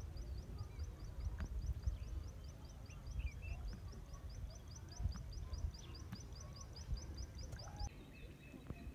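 Wildlife chirping: a rapid, even run of high chirps, about five a second, that stops near the end, with a few scattered bird calls over a low rumble.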